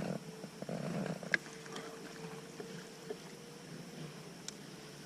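Faint steady hum of a boat's electric trolling motor, with a few light knocks and rustles in the first second and a half.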